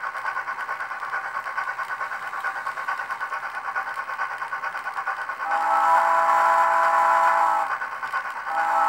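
Digital sound decoder of a Rivarossi HO-scale Chapelon 4-6-2 steam locomotive model playing quick, even steam chuffs through the model's small speaker. About halfway through, a steam whistle sounds for about two seconds, the chuffing resumes, and the whistle starts again near the end.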